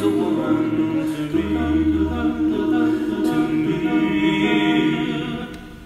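One man's voice multi-tracked into a close-harmony a cappella group, holding sustained chords at the end of the song, with a low bass note about a second and a half in. The sound fades out near the end.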